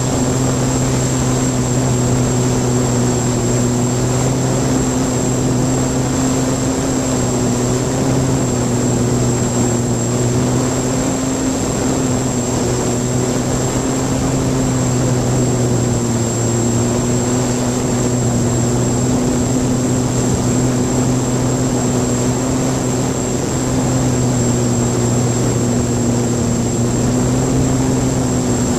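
Electric motors and propellers of a hexacopter in flight, heard up close from a camera taped to one of its arms: a steady buzzing hum whose pitch wavers a little as the motors adjust, with a thin high whine running over it.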